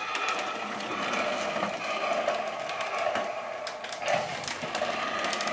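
Small electric motor of a child's ride-on toy quad whirring steadily as it moves across a wooden floor, with light clicks and a brief louder swell about four seconds in.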